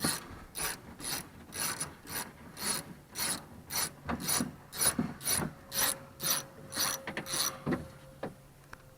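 Hand socket ratchet being swung back and forth, its pawl clicking in a short burst on each backstroke, about two strokes a second, until it stops a little before the end: a bolt being run out.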